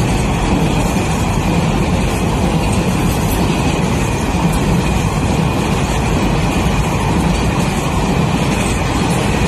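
Container freight train's wagons rolling past close by: a steady, loud rumble of steel wheels on the rails.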